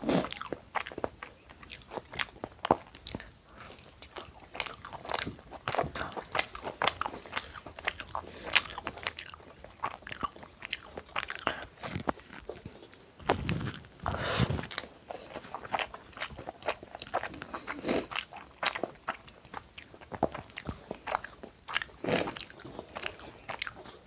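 Close-miked eating of chicken biryani: irregular wet chewing clicks and bites, many small mouth noises a second, with a louder, deeper noise about halfway through.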